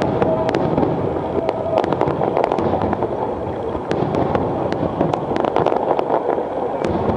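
Fireworks display: a dense, continuous din of bursts with many sharp crackles and pops scattered over it.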